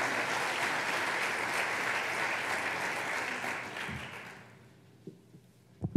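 Audience applauding steadily, the clapping dying away about four seconds in. A couple of soft knocks follow near the end.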